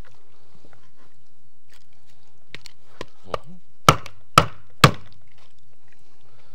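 Chopping through the bones of a large silver carp to cut it into steaks: a few light knocks, then three sharp chops about half a second apart.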